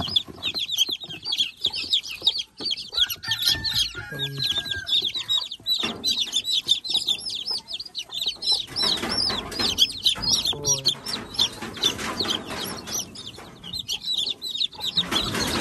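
A brood of 4-day-old chicks peeping high and rapidly without pause. A mother hen gives a few low clucks, and there is rustling of handling around the middle and near the end.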